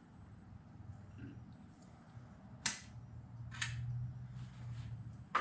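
A few sharp metallic clicks from small engine parts and tools being handled, the clearest about two and a half seconds in, over a low steady hum.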